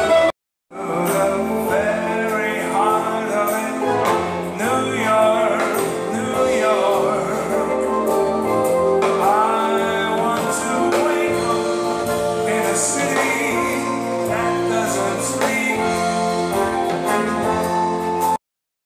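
Live band music with a man singing into a microphone; it cuts off suddenly near the end.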